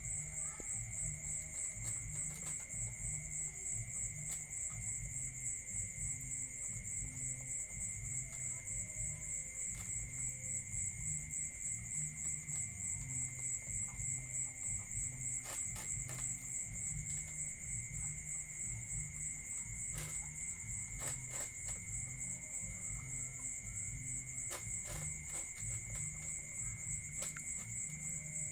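Crickets and other night insects trilling steadily in two high pitches, one with a fast pulse. A low uneven pulsing runs underneath, and scattered clicks and clatters come from dogs eating out of a plastic tub.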